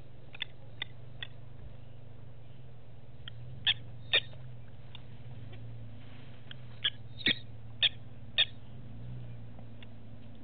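Short, sharp bird chirps at irregular intervals, a few louder ones in quick succession through the middle, over a steady low hum.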